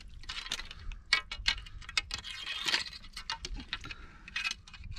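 Metal lobster hook probing a hole in the rock: irregular clicks, taps and scrapes of metal against rock, several a second.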